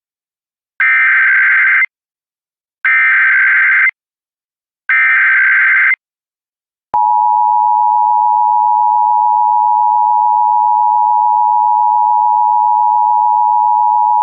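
Emergency Alert System SAME header for an AMBER Alert: three one-second bursts of warbling data tones, about a second apart. About seven seconds in, the steady two-tone EAS attention signal (853 and 960 Hz) begins.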